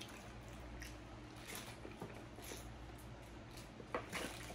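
Quiet room tone with a few faint clicks and soft handling sounds from a plastic water bottle. Near the end, a couple of small sounds come as she drinks from the bottle.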